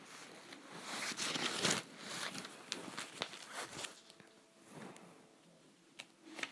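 Rustling and light knocks of paper and fabric being handled close to the phone, busiest in the first two seconds and dying down to near quiet about four seconds in.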